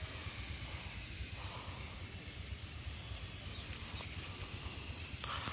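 Steady hiss of outdoor background noise with a low rumble underneath.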